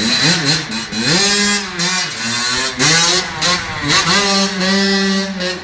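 Dirt bike engine revving as it rides off: the pitch climbs, holds and drops back several times.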